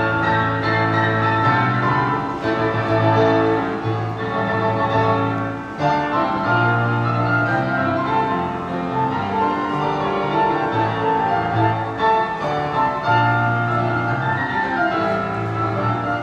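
Upright street piano played four hands by two players, a continuous duet with a held bass line under busy notes higher up.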